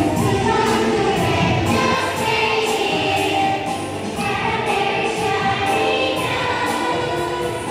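Elementary-school children's choir singing a Christmas song in unison, over accompaniment with a steady beat.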